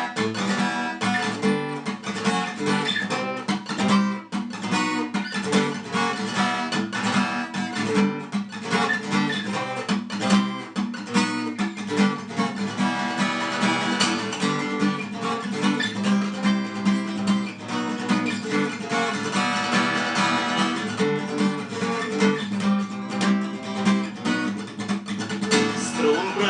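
Acoustic guitar strumming chords in a steady rhythm, playing the song's instrumental intro.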